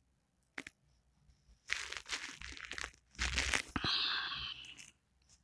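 Rustling, crinkling noise in two stretches, starting about a third of the way in and fading out near the end.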